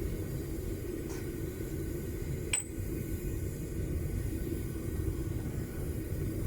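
Homemade propane furnace burner running with a steady low rush while it heats a crucible of brass that has not yet melted. A faint tick comes about a second in, and a single sharp metallic clink about two and a half seconds in.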